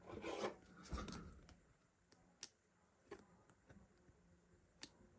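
Faint handling sounds of a Pokémon trading card being slid into a soft plastic card sleeve: light rustling in the first second and a half, then a few faint isolated clicks.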